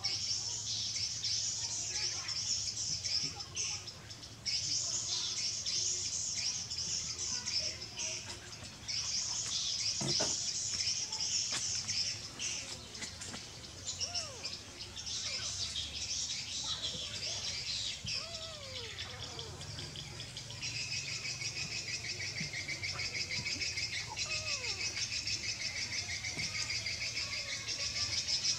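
Outdoor chorus of birds and insects chirping, high and continuous with a few short breaks; a faster, lower trill joins about two-thirds of the way in.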